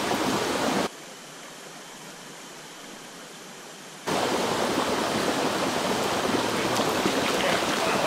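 Steady rushing of a small forest stream, dropping suddenly quieter about a second in and coming back louder about four seconds in.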